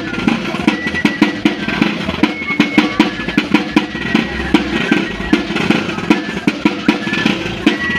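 Live folk dance music: fast, dense drumming with a high pipe playing held notes over it.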